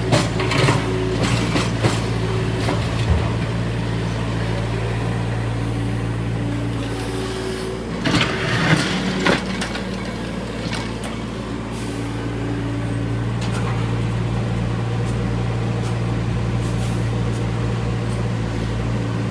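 Excavator's diesel engine running steadily, with scattered knocks and clanks and a short burst of hiss and clatter about eight seconds in.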